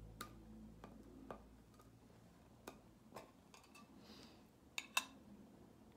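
Faint, scattered clicks and light taps of small items being handled, with a sharper double click about five seconds in.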